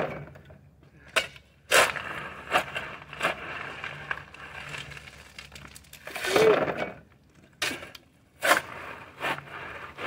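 Shovel scooping landscape rock: sharp crunching scrapes and clatters of rock, several strokes spaced about a second apart, with a longer scrape about six seconds in.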